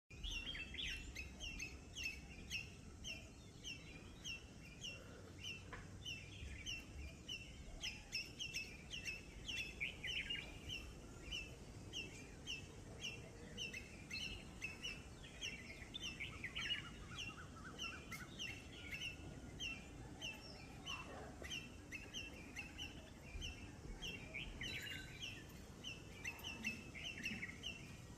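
Wild birds calling at dawn: one bird repeats a short high chirp about twice a second without a break, with other birds' chirps and brief trills over it.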